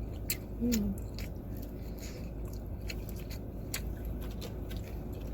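Close-up chewing and eating, with scattered small sharp clicks at irregular moments, over a steady low hum inside a car; a brief murmur just under a second in.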